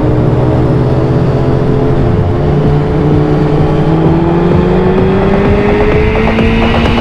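Sportbike engine running at highway speed over a steady rush of wind. Its pitch climbs slowly over the last few seconds as the bike accelerates.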